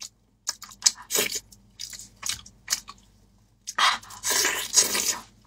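Close-miked wet chewing and biting of braised pork knuckle: scattered short crackly smacks, then a longer, louder stretch about four seconds in as a mouthful of skin and meat is bitten off the bone.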